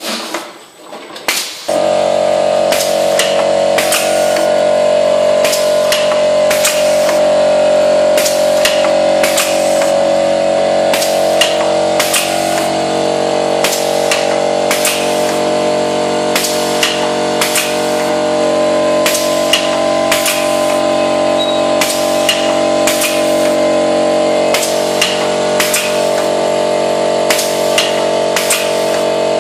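Semi-automatic turntable screen printing machine running: a steady machine hum with sharp mechanical clacks repeating about one to two times a second. The hum comes in about two seconds in, after a short quieter stretch.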